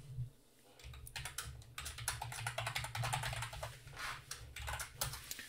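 Typing on a computer keyboard: a quick, steady run of keystrokes that starts about half a second in.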